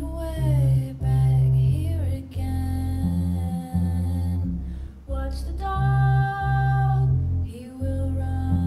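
Music for a tribal fusion bellydance: a deep, heavy bass line under a voice singing long, sliding notes.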